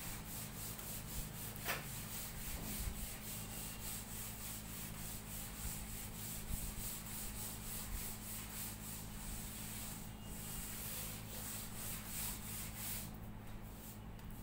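Blackboard duster wiping chalk off a chalkboard in quick, rhythmic back-and-forth strokes, with a brief pause about two-thirds of the way through before the wiping resumes.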